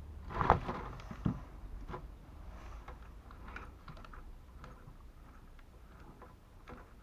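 Knocks and clicks of the hoist motor's disassembled metal parts being handled and set down. There are a few sharper knocks in the first two seconds, then small scattered clicks that fade away.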